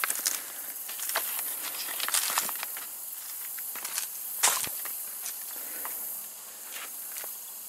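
Footsteps crunching over loose rocks, gravel and dry leaf litter on a slope, as irregular crunches and clicks with one louder one about four and a half seconds in, over a steady high hiss.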